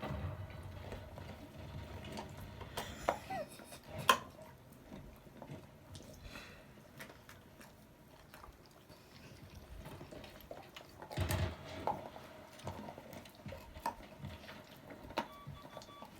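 Dog gnawing on a bone: scattered clicks, scrapes and small knocks, with a sharp knock about four seconds in and a few soft thuds around eleven seconds.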